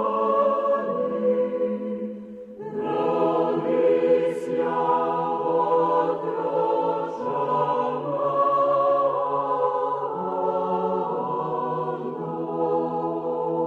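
Choir singing a slow chant, several voice parts holding long chords that shift every second or two, with a brief break about two and a half seconds in.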